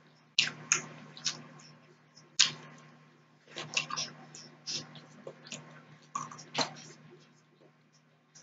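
Close-miked mouth sounds of chewing pork steak: irregular wet smacks and clicks of lips and tongue, several in quick succession, over a steady low hum.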